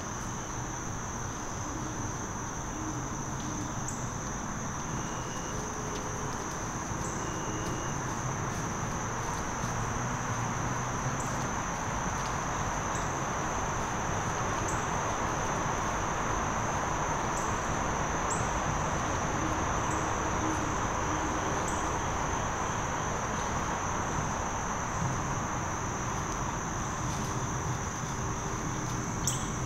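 Steady, unbroken high-pitched trilling of insects in the woods, over a constant broad background hiss.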